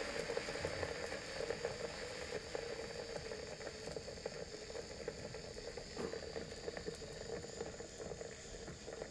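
Portable battery-powered mini bottle blender running, its small motor humming steadily as the blades churn milk and mango pieces. There is a light tap about six seconds in.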